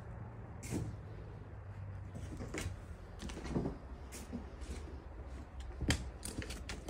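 Footsteps and small knocks of someone moving through a room with litter on the floor: a few separate short knocks and creaks, the sharpest about six seconds in, over a low steady rumble.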